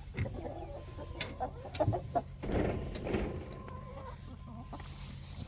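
Hens clucking in short, irregular calls, with a few clicks among them, over a steady low hum.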